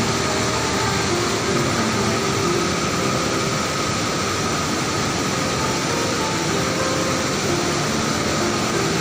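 Waterfall: water pouring and rushing in a loud, steady roar.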